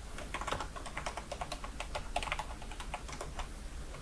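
Computer keyboard being typed on: a quick, uneven run of key clicks.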